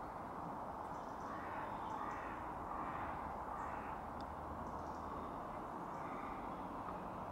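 Crows cawing several times over a steady background hiss.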